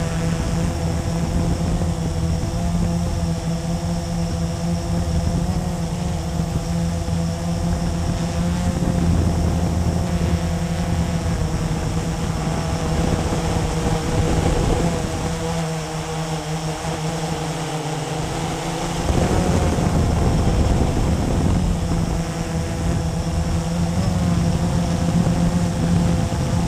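Blade 350QX quadcopter's four brushless electric motors and propellers buzzing in flight, heard up close from the camera on board. The pitch wavers as the craft manoeuvres; the low hum thins for a few seconds past the middle, then comes back louder.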